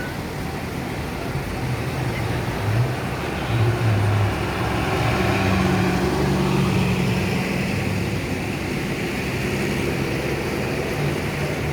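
Tour bus's diesel engine running as the bus moves through the parking lot, its note rising and falling and loudest about four seconds in.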